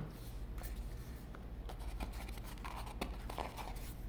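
Hands handling the packaging and opening the small bag from the box: light scratchy rustling with scattered small clicks.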